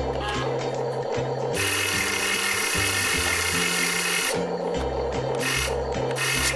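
Motors and gears of a HuiNa 1580 RC excavator whirring as it works its arm and bucket, growing harsher and louder for about three seconds in the middle. Acoustic rock background music with a stepping bass line plays underneath.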